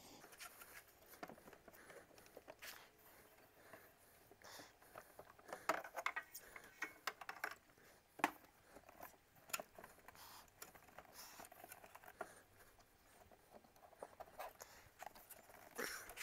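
Faint, scattered clicks, taps and light scrapes as a panel is worked loose and slid out of the channels of an aluminium-framed box, with a few sharper knocks along the way.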